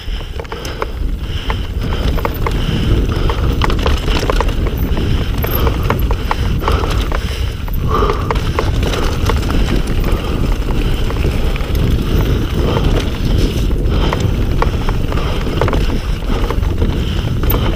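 Mountain bike riding down a downhill trail: a steady rush of wind and tyre noise over the microphone, with frequent rattles and knocks from the bike as it runs over rough ground.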